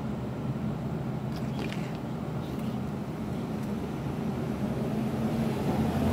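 Steady low hum of city street traffic and running engines, with a few faint clicks about a second and a half in.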